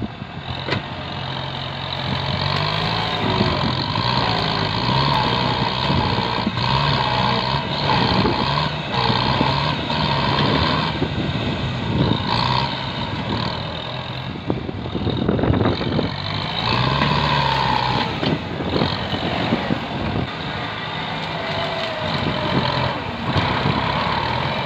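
Kubota tractor's diesel engine working under load as its front blade pushes over brush and small trees. The engine pitch rises and falls as the load changes, with scattered cracks over it.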